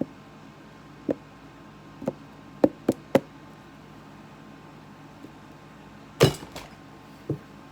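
Short sharp knocks and clicks of a magnetic makeup palette being handled, its magnetic closure snapping against the case: single taps about a second and two seconds in, a quick cluster of three near the three-second mark, and the loudest knock about six seconds in, followed by a softer one.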